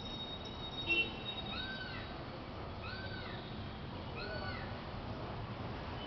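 An animal's high mewing call, each one rising then falling, repeated about every second and a half. A short, sharp sound about a second in is the loudest moment.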